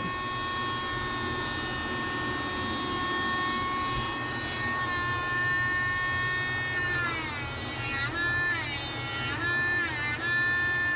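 Dremel rotary nail grinder running with a steady whine while filing a dog's nails. From about seven seconds in, its pitch dips and recovers several times as the sanding band is pressed against the nail.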